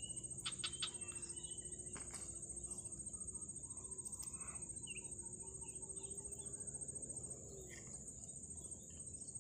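Swamp-side ambience: a steady high-pitched insect drone with scattered short bird chirps.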